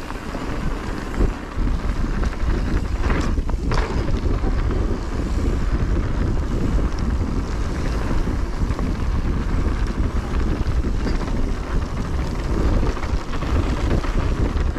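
Wind buffeting the microphone of a mountain biker's camera on a trail descent, a steady rumbling rush, with two short clatters a little over three seconds in.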